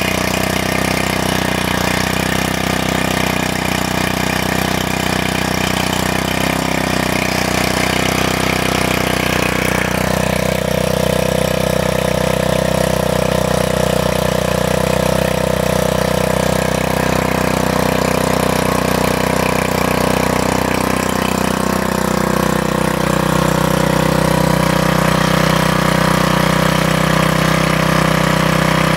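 Harbor Freight Predator 79cc single-cylinder four-stroke engine running steadily on a repowered MTD wheel edger. Its note changes about ten seconds in and again a little past twenty seconds.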